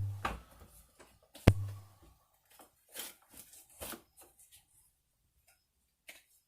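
Two sharp knocks about a second and a half apart, each followed by a short low hum, then a few fainter clicks and rustles of tools and materials being handled on a work surface.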